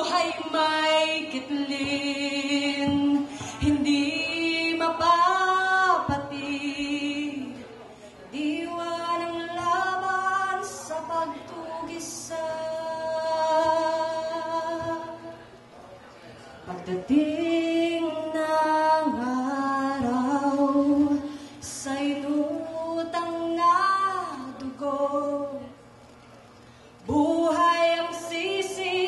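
A woman singing a cappella in Tagalog: one unaccompanied voice in phrases of a few seconds, with long held notes that waver in pitch and a short breath pause about three quarters of the way through.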